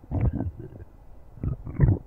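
Stomach growling in two spells of rumbling, a short one just after the start and a louder one near the end.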